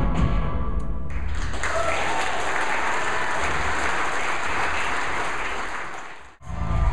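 A rock and roll band with upright bass finishes its number about a second in, and the theatre audience applauds. The applause fades and cuts off, and music starts again just before the end.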